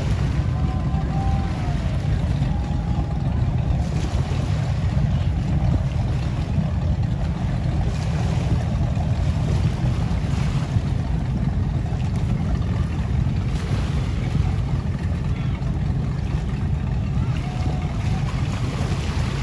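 Motorboats running as they pass by, a steady low rumble mixed with water wash and wind noise on the microphone.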